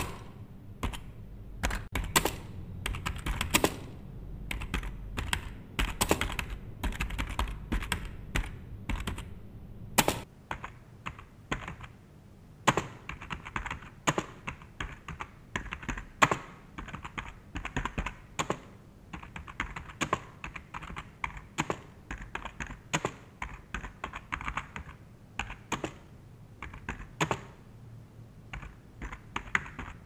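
Typing on a computer keyboard: a rapid, irregular run of key clicks. About ten seconds in, a low background rumble drops away and the keystrokes come in more spaced-out bursts.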